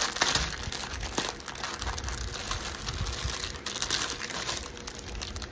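Crinkly wrapping crackling and rustling as it is pulled off a bundle of diamond-painting drill bags by hand.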